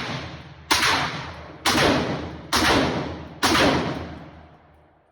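Gunshots fired at a steady pace of about one a second: four shots, each with a long echoing tail, following one just before.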